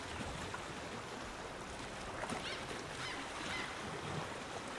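Soft ambience of running water, with a few faint calls, possibly of birds, about two to three seconds in.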